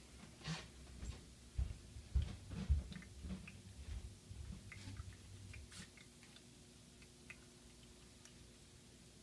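Homemade Heron's fountain running, its small jet of water trickling and dripping into the plastic top basin as faint scattered ticks, with a few low thumps in the first three seconds.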